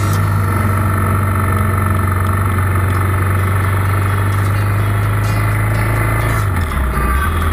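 Motorcycle engine running steadily at cruising speed, heard from the bike carrying the camera; its pitch drops about six and a half seconds in, as the throttle is eased.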